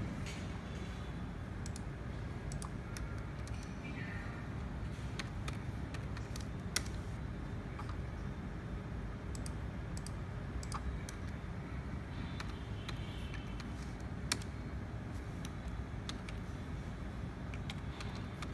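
Computer keyboard keys clicking in scattered, irregular keystrokes as commands are typed, over a steady low hum. Two sharper clicks stand out.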